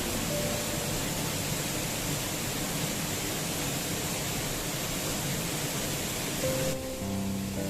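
Steady rushing of a waterfall, with a few faint held musical notes under it. A little before the end the rush drops off abruptly and the music comes forward.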